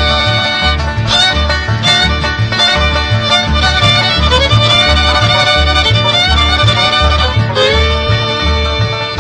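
Bluegrass-style string music, a fiddle line over a steady bass pulse about twice a second, with banjo and guitar.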